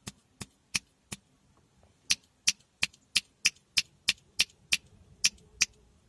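A dog grooming itself with its mouth, making a series of sharp clicks: a few spaced ones at first, then from about two seconds in a steady, louder run of about three a second.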